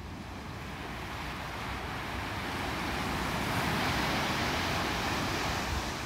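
Small ocean waves breaking and washing up a sandy beach. The surf hiss swells to a peak about four seconds in and eases off near the end.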